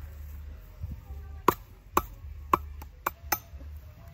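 A blade chopping: a run of about six sharp, hard chops, starting about a second and a half in and coming roughly two a second.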